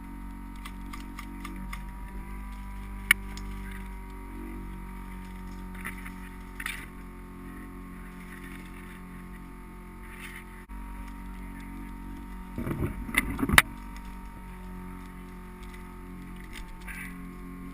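Steady whir of an anti-fog goggle fan, muffled through a waterproof GoPro case right beside it. A few sharp clicks and knocks cut through it, one about three seconds in and the loudest as a quick cluster about thirteen seconds in.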